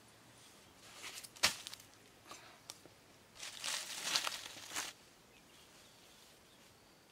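Bare feet stepping on dry fallen leaves, crunching and crackling in short spells, the longest just past the middle, with one sharp thump about a second and a half in.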